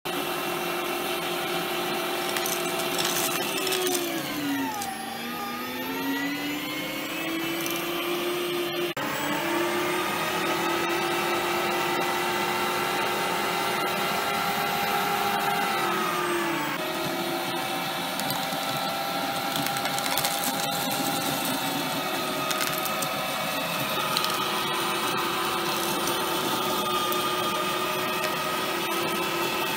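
Bosch ProPower 2000 W electric meat grinder running steadily while it grinds hard candy balls into powder. Its motor whine drops sharply in pitch about four seconds in, bogging as the candy is fed in, then climbs back over the next few seconds and settles a little lower about halfway through.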